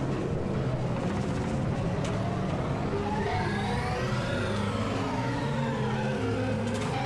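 Lo-fi mono cassette recording of a live rock band jamming: distorted electric guitars and bass holding low notes. A high sliding tone rises and falls back about three to five seconds in.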